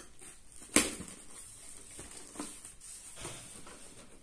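Scissors cutting through packing tape and cardboard on a shipping box: a sharp snip about a second in, then fainter cutting and crinkling strokes.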